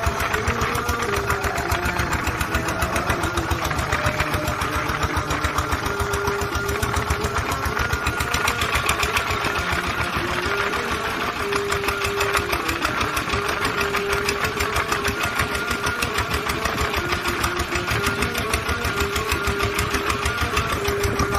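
A small fishing boat's engine running steadily under way, with a rapid, even beat.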